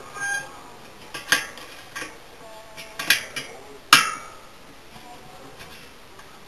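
Metal clinks of a round spoke wrench against the spokes and nipples of a bicycle wheel while spoke tension is adjusted in truing: about five sharp clinks at uneven intervals over the first four seconds, the last one the loudest.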